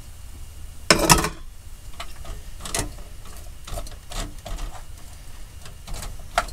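Chicken pieces tipped from a bowl into a pan on the hob with a short loud clatter about a second in, then a wooden spoon stirring the pan, knocking against it in short irregular taps.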